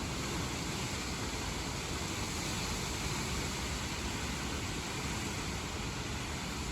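Steady hiss of a thunderstorm's moderate rain and gusty wind, even and unbroken, with no thunder.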